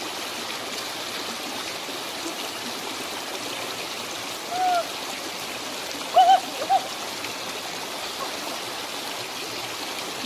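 Shallow stream running over rocks in small cascades, a steady rushing hiss. A few short, high calls break in about four and a half seconds in and again around six seconds in.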